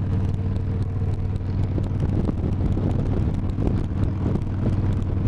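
Harley-Davidson touring motorcycle's V-twin engine running steadily at highway cruising speed, with wind rushing over the microphone.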